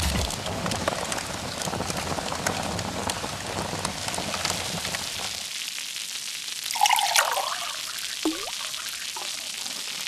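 Steady hiss and patter of rain with fine ticks and drips, a low rumble beneath it dying away about halfway through. A brief wavering call comes about seven seconds in, and a short swooping call just after.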